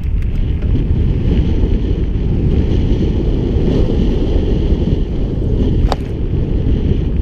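Wind rushing over the camera microphone with the rumble of mountain-bike tyres rolling down a gravel trail. A single sharp click comes about six seconds in.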